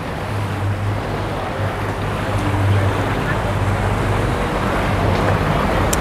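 Outboard engine of a center-console boat idling past at slow speed: a steady low hum over the wash of water along the hull, slowly getting louder, with a sharp click near the end.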